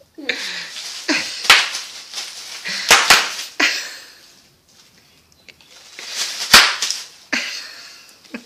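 Bubble wrap popping and crinkling under a toddler's bare feet: a few sharp pops, the loudest about six and a half seconds in, among the crackle of shifting plastic.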